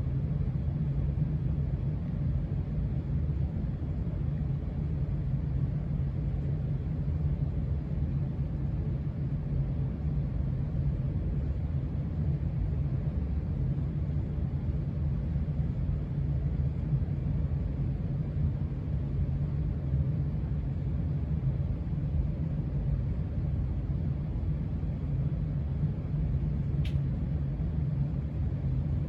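Casablanca Spirit of Saturn ceiling fan coasting down with its motor switched off: a steady low rumble. A single short click near the end.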